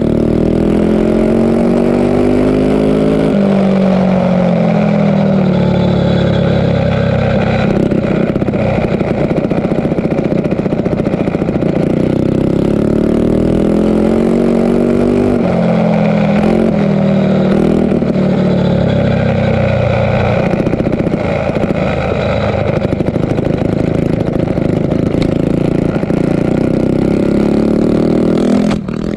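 Small mini bike engine at full race effort, heard close up from the bike, its pitch rising and falling again and again as the bike speeds up and eases off around a dirt flat track. Near the end the engine sound drops away sharply and a few knocks follow.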